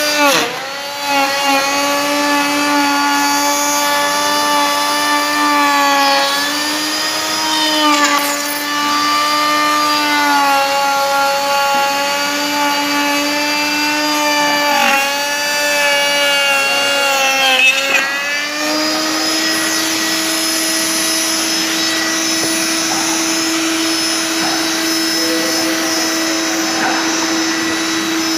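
Electric woodworking power tool running with a high motor whine. Its pitch sags and wavers again and again as it is loaded cutting wood, with a sharp dip right at the start, then runs steady and a little higher from about two-thirds of the way through once the load comes off.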